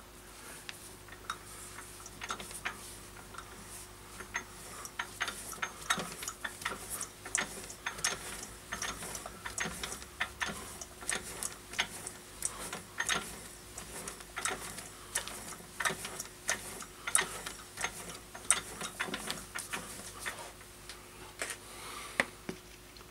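Irregular light metallic clicks and ticks from a metal lathe's chuck and headstock as the chuck is turned by hand, over a faint steady hum.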